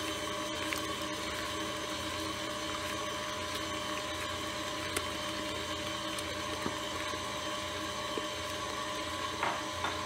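Electric stand mixer running steadily, its flat beater working eggs into creamed butter and sugar in a stainless steel bowl: an even motor hum with a few faint ticks.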